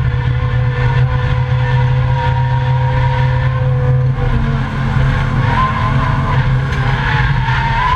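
Volvo 850 race car's inline five-cylinder engine running hard under load, heard from inside the cabin as a steady drone. The engine note changes about four seconds in. In the second half a wavering tyre squeal comes in as the car corners.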